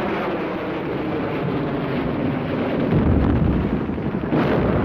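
Battle sound effects of artillery shell explosions: a continuous rumble of blasts, with a deep boom about three seconds in and a sudden sharper blast near the end.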